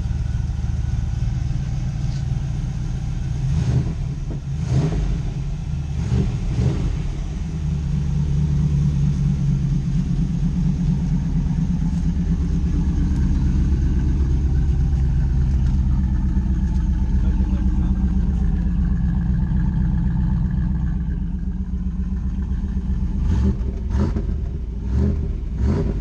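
Pontiac Trans Am's V8 engine running just after being started, a deep steady rumble that grows louder through the middle stretch. A few short sharp knocks come over it a few seconds in and again near the end.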